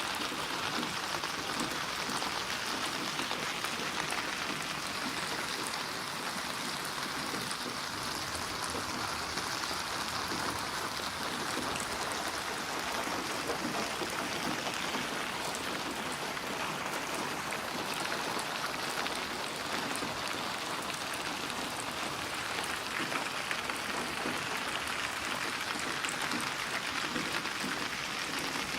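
Steady rain falling, an even hiss with scattered fine drop ticks.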